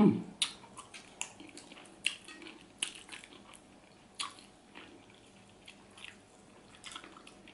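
Close-miked eating sounds: scattered lip smacks and chewing clicks as a person picks meat off catfish head bones with her fingers, with a louder thud right at the start.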